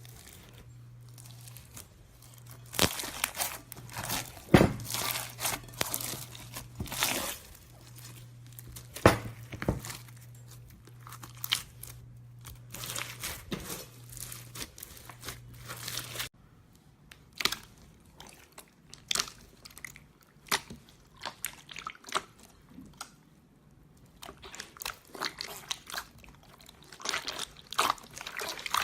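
Hands squishing and pressing slime, making irregular bursts of crackling and popping clicks in clusters with short pauses between them.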